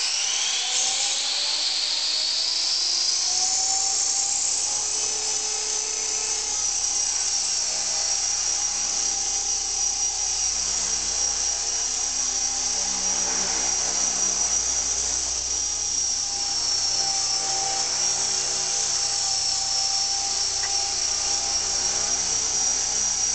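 Heli-Max Axe CP micro electric collective-pitch RC helicopter spooling up. Its motor and rotor whine rises in pitch over the first few seconds, then holds as a steady high whine while it flies and hovers.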